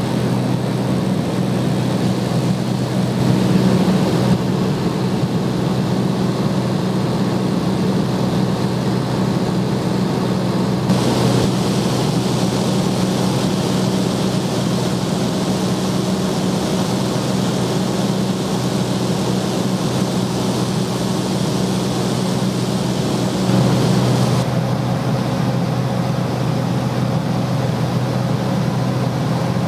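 Light propeller aircraft's engine running steadily, a constant drone. It shifts slightly in tone a couple of times.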